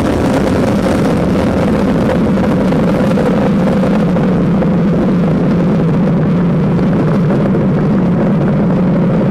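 Falcon 9 rocket's nine Merlin first-stage engines firing in ascent just after liftoff: a loud, steady rushing noise with a low hum running through it.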